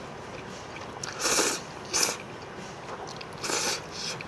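A person slurping thick, sticky instant noodles: three slurps, a longer one about a second in, a short sharp one at two seconds, and another near the end.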